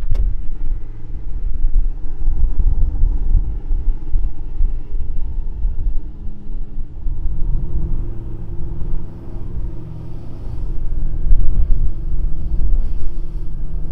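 Pickup truck engines running under load as a Ford Super Duty tows a stuck Ford F-150 out of soft beach sand, the engine note rising and falling with the throttle over a heavy low rumble.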